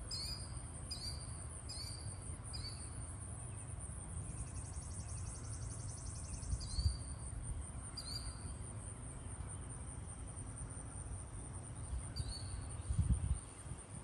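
Outdoor ambience of a steady, high-pitched insect drone, with a bird calling in short chirps, about one a second at first and then a few more spaced out. A rapid trill runs briefly from about four seconds in.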